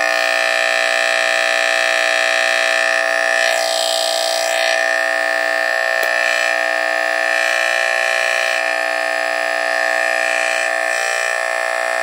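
Emhart Kwikset 357 smoke detector (a rebranded Pyrotector Smoke Sentinel) sounding its Faraday mechanical vibratory horn on test: a loud, steady, unbroken buzz. Driven straight off unrectified 120-volt AC, it gives the typical 60-hertz AC smoke detector buzz.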